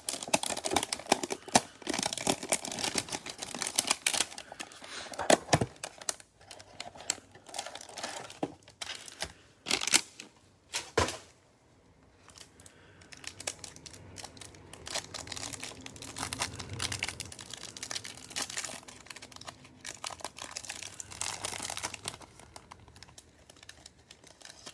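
Plastic wrap crinkling and tearing as a Panini Prizm basketball hanger box and its cellophane-wrapped stack of cards are opened by gloved hands. Dense crackling with a few sharp snaps about five and ten seconds in turns to quieter rustling after about twelve seconds, then crinkles again near the end.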